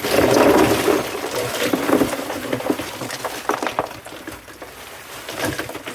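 Gray water from the kitchen sink pouring and splashing into a filter bin of lava rock and sand, heaviest in the first second, then trickling with small clicks and clinks.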